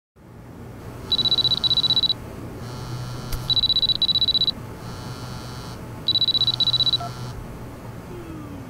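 A mobile phone ringing: a high electronic trill in three loud bursts of about a second each, with softer tones between them and a low hum underneath. The ringing stops after the third burst as the call is answered.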